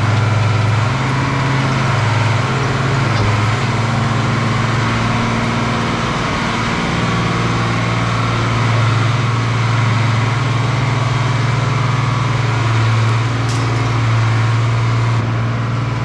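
Tractor engine running steadily and driving a Valmetal feed mixer wagon that is unloading feed through its side discharge chute into a cattle feed bunk: a constant low engine hum with machinery noise over it.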